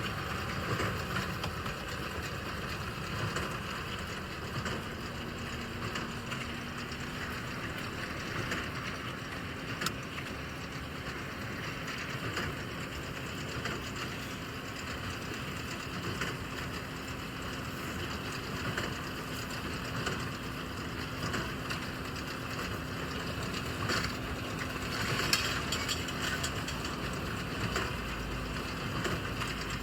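Tractor and straw baler working in a field: a steady engine drone, a steady low hum that joins about four seconds in, and scattered clicks and knocks from the baler's mechanism.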